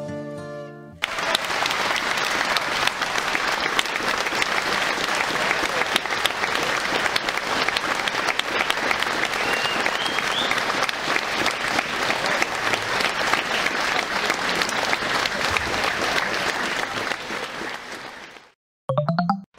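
Audience applauding: a long, steady round of clapping that begins as flute music breaks off about a second in and fades out near the end.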